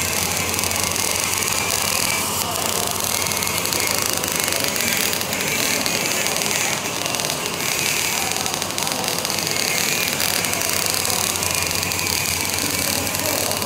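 Electric arc welding a fillet joint on upright steel plate: the arc crackles and sizzles steadily and loudly throughout, with spatter.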